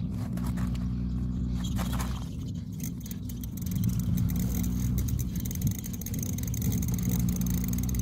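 Bicycle chain and freewheel ticking rapidly as the cranks are turned backward while lube is dripped onto the chain, starting a few seconds in. A steady low hum runs underneath.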